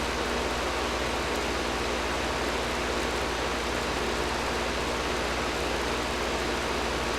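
Air conditioner running steadily: an even rush of blowing air over a low hum.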